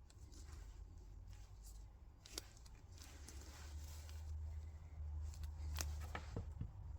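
Faint handling noises of a lock pick being assembled from epoxy-coated acrylic scales, steel and brass pins: a few light clicks over a low rumble.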